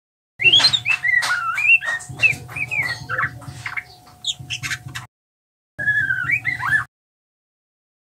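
Juvenile white-rumped shama singing a rambling practice song (subsong), the early stage of learning to sing: a quick jumble of varied chirps, gliding whistles and clicks for about five seconds, then after a short pause one shorter phrase.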